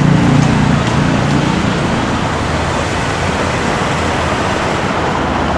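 Steady city street traffic noise: a continuous wash of passing cars, with a low engine hum that fades out in the first second or so.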